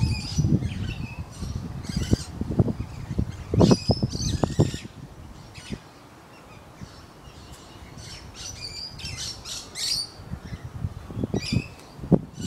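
Birds squawking and chirping again and again, over bursts of deep rumbling noise that are strongest in the first few seconds.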